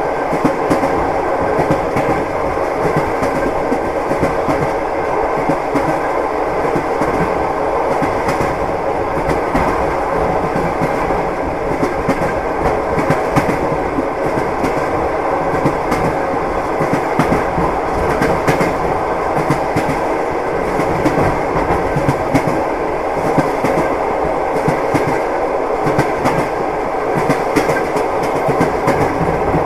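A train running across a steel truss bridge, heard from inside the carriage: a steady, loud rumble with wheels clattering over the rails in quick, irregular clicks throughout.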